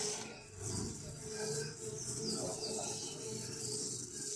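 Electric grater machine running with a steady hum while peeled cassava is pressed against its spinning grater disc, giving a continuous high rasping noise.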